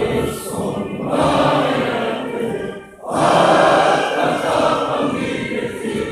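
Hundreds of gendarmerie recruits' male voices in unison, chanting in long phrases with a short break about three seconds in.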